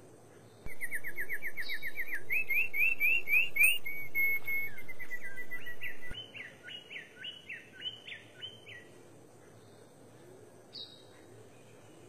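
King bird-of-paradise singing. It gives a fast trill that climbs into a run of quick rising whistled notes, then a series of short down-slurred notes about three a second. A brief higher call comes near the end.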